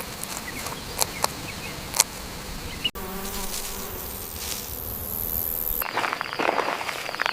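A flying insect buzzing steadily. A few sharp clicks come in the first couple of seconds, and about six seconds in the sound switches abruptly to a rustling noise.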